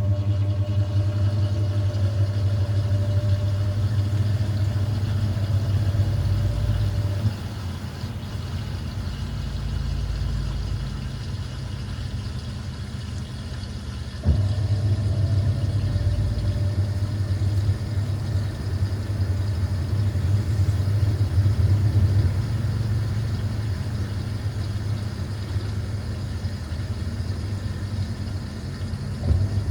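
Hoover 800RL top-loading washing machine on its final spin, its motor humming steadily. The motor eases off about seven seconds in, cuts back in with a click about halfway through, and cuts in again near the end.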